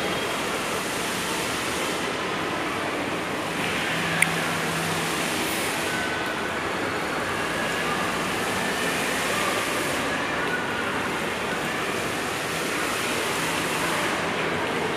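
Steady hubbub of a busy indoor shopping mall atrium, with a single sharp click about four seconds in.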